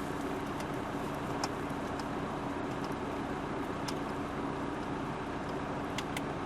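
Steady low hum of the car's idling engine heard inside the cabin, with a few sharp clicks from the navigation controller buttons being pressed, twice close together near the end.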